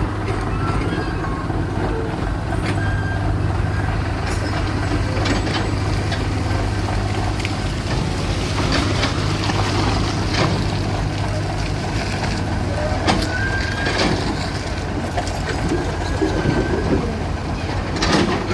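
Heavy diesel machinery running steadily, with scattered clanks and knocks and a few brief high-pitched tones.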